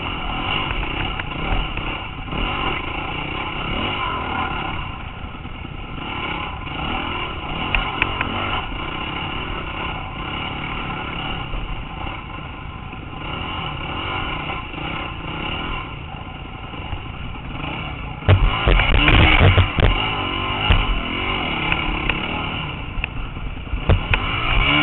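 Dirt bike engine running under varying throttle as the bike is ridden over a rough, rutted woods trail, with rattling and clatter from the bike and camera mount. It gets louder about three-quarters of the way through.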